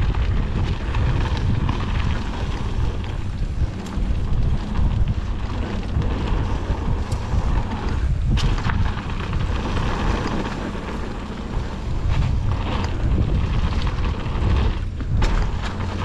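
Wind rushing over the microphone of a mountain biker's camera during a fast descent on a dirt trail, a constant rumble, with tyre noise on dirt and a few sharp knocks from the bike over bumps.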